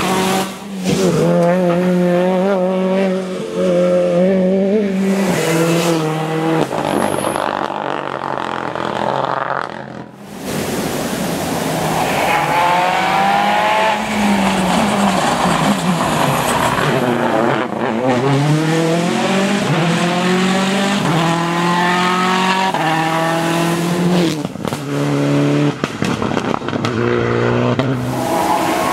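Rally cars, a Citroën C4 WRC and a Porsche 911 among them, pass at full speed on a wet tarmac stage. Their engines rise in pitch and drop back in steps as they shift up through the gears, with hiss from the tyres on the wet asphalt. There is a sudden break in the sound about ten seconds in.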